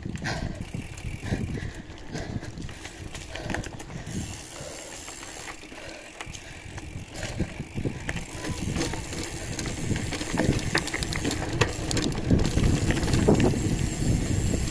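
Bicycle riding noise: tyres rolling over rough ground with rattles and clicks from the bike, and a rumble that grows louder in the second half.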